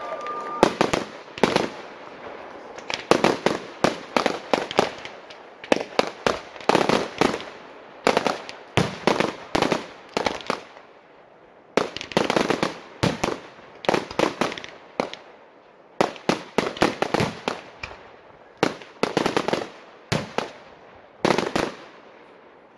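A 50-shot, 30 mm fan-pattern brocade firework cake (Angelfire BFC50FANA) firing shot after shot: sharp bangs in quick irregular clusters, a few a second, with brief pauses between clusters.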